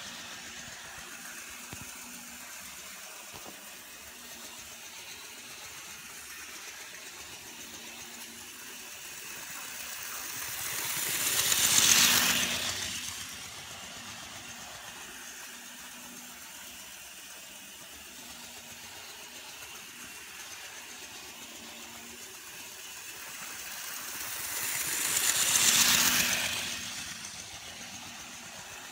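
Bachmann HO-scale 2-8-0 model steam locomotive running on sectional track: its small motor, gears and wheels whirr and rattle, swelling as it passes close by twice, about 14 seconds apart, then fading as it runs round the loop.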